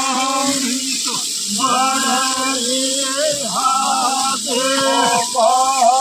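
A voice singing in long, wavering held phrases over a steady low drone.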